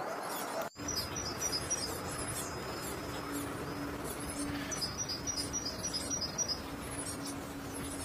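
Two trains of rapid, high-pitched chirps, one about a second in and one about five seconds in, over a steady hiss and a low hum, after a brief dropout just under a second in.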